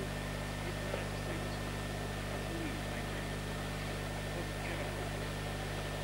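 Steady low hum and hiss of an old analog camcorder tape recording, with a thin constant whine above it and faint distant voices now and then.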